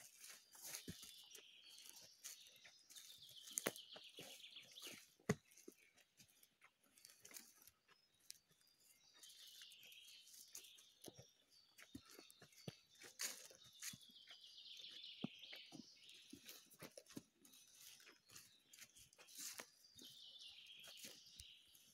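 Footsteps crunching and crackling on dry leaf litter and twigs along a forest path, with scattered sharp snaps. Behind them a high, fast-pulsing trill slides downward and recurs every few seconds.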